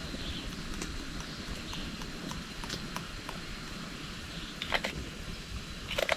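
Irregular sharp clicks and knocks over a faint outdoor hiss, with louder knocks about two-thirds of the way in and again near the end.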